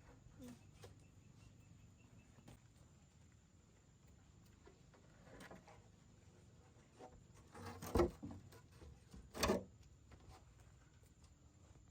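Two loud sharp knocks about a second and a half apart, with faint scattered clicks and rustling around them.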